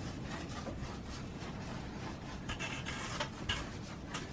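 Homemade card-and-tape bird puppet being worked on rods, its hinged wings flapping: continuous papery rustling with irregular light clicks and taps.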